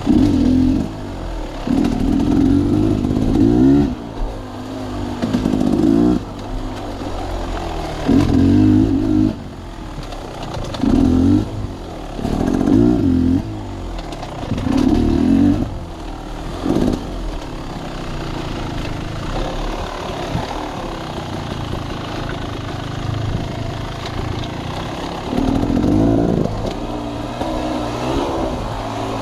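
Sawmill machinery running loudly, its engine note swelling in repeated surges every second or two, then running steadier with one more surge near the end.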